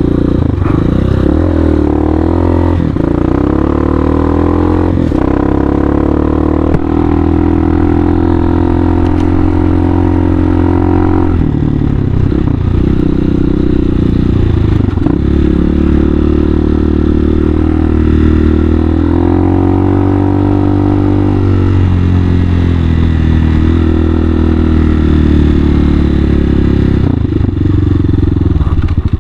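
Hawk 250 dual-sport motorcycle's single-cylinder four-stroke engine pulling under load while riding. The engine note climbs and then dips or drops several times with throttle and gear changes.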